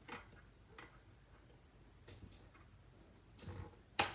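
Scattered small clicks and taps of hands and tools fiddling with a Mac Mini fan connector while trying to seat it on its pins, with one sharper click near the end.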